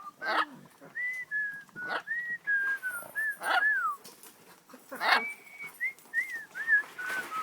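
Pet bird whistling a string of short notes that glide up and down, with a few sharp squeaks in between.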